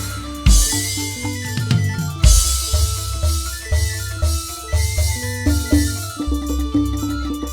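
Live band music driven by a drum kit, with loud crash hits about half a second in and again just after two seconds, over a steady bass line and held melodic tones.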